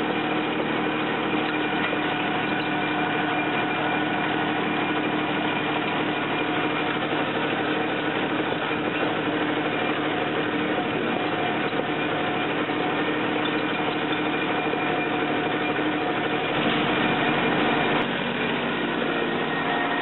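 John Deere tractor engine running steadily while it pulls a hay tedder through cut hay. About three-quarters through the level rises briefly and ends in a single sharp click.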